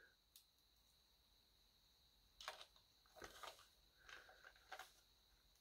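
Near silence, broken about halfway through by a few faint, brief plastic clicks and scrapes as a toy dinosaur's tail piece is pushed against the body, not yet going in.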